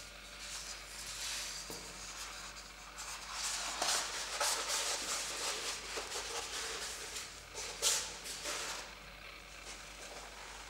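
A sheet of drawing paper handled and rolled up by gloved hands on a stainless steel table: rustling and sliding on the metal. It is busiest in the middle, with sharp crackles about four and eight seconds in.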